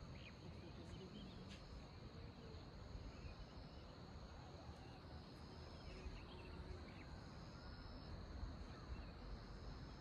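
Faint insect chorus in rural fields: a steady high buzz, with higher trills that switch on and off every second or so, over a low background rumble.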